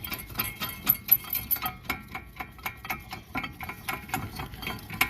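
Ratchet wrench clicking in quick irregular runs, with light metallic clinks, while working on the rear brake caliper bracket.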